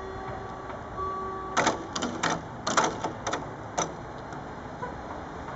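Level-crossing barrier booms coming down onto their rests, with their hanging grilles rattling. About eight sharp clattering knocks come over roughly two seconds, starting about one and a half seconds in.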